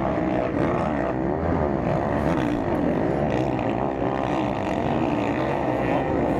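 Several MX1-class motocross bikes racing, their engines revving up and down in overlapping, wavering pitches as the riders throttle over the jumps.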